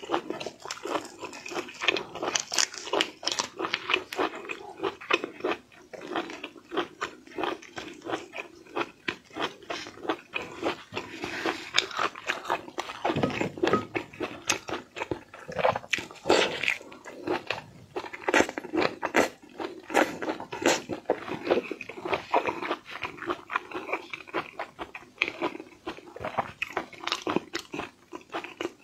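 Close-miked eating of raw shrimp: wet chewing, smacking and biting sounds in a dense, irregular run, with the shrimp shell being peeled by gloved hands at the start.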